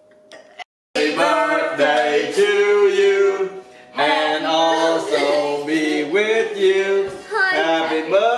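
Music with sung vocals over a steady low accompaniment, starting abruptly about a second in after a moment of silence.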